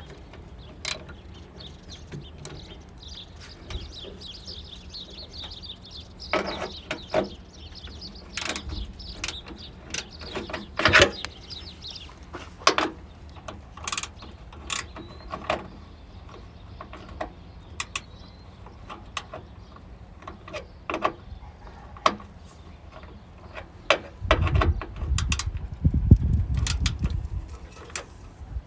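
A ratchet wrench and extractor socket clicking and clinking in irregular sharp clicks as a bolt is tightened back up. A low rumble comes in near the end.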